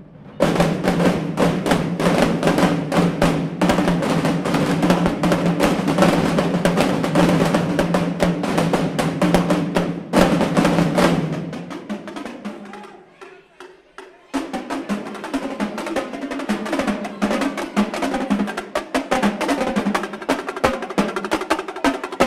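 Marching-band drumline of bass drums, snare drums and tenor drums playing a loud, dense cadence, which dies away about twelve seconds in. After a short lull the snares and tenor drums come back in suddenly with fast, rolling strokes and without the low bass drums.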